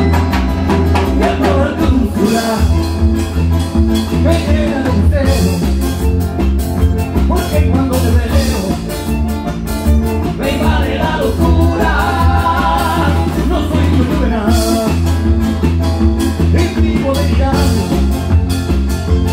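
Live band playing Latin-American folk dance music: bandoneón, electric bass, acoustic guitar and drum kit together, with a steady bass-and-drum beat under a moving melody. The passage is instrumental, with no vocal line.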